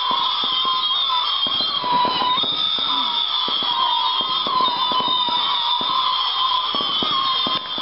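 Jet Propulsion consumer fireworks, four fired at once, going off. A loud steady high whistling wavers in pitch throughout, over many rapid crackling pops.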